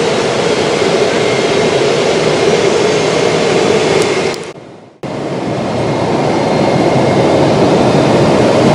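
Jet airliner cabin noise in flight: a steady, loud rush of engine and airflow noise. It fades out briefly a little past halfway and then cuts back in abruptly.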